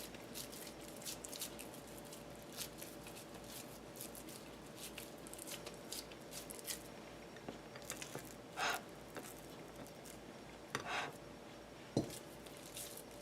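Soft squishing and patting of hands working raw ground beef into patties, with a few brief louder rustles and a knock in the second half.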